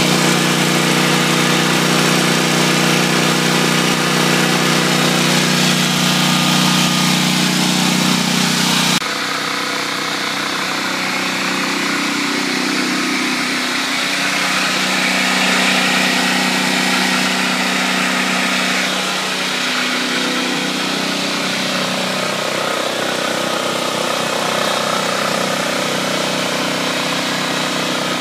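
Generac XG8000E portable generator's engine running steadily, heard up close inside its plastic garden-shed enclosure. About nine seconds in it becomes quieter and more muffled, heard from outside the closed shed.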